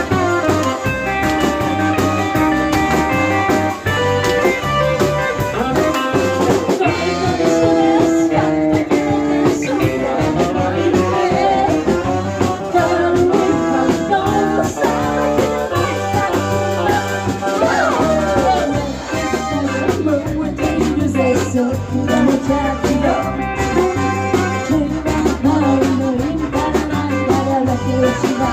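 Live band music: electric guitar over bass and drums with a steady beat, with some singing.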